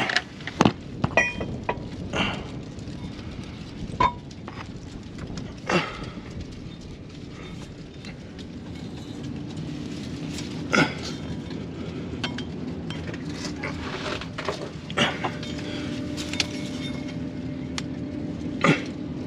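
Scattered metallic clinks and knocks of hand tools against car parts, a dozen or so sharp strikes at irregular intervals over a steady low hum.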